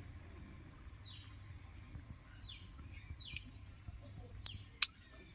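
Bird chirps: short, falling calls three times. Two sharp clicks come near the end, over a steady low rumble.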